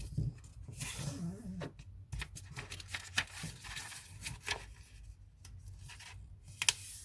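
Sheet of paper being folded and creased by hand: a run of rustles and swishes.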